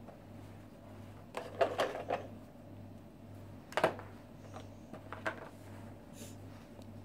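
Light knocks and clatter of plastic dolls being set down into a plastic toy bathtub: a quick run of knocks about a second and a half in, a sharper single knock near four seconds, then a few softer taps.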